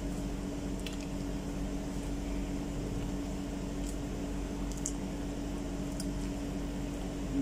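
A steady hum from a room appliance, with a few faint soft clicks from a banana being peeled and eaten, about a second in and again between four and six seconds in.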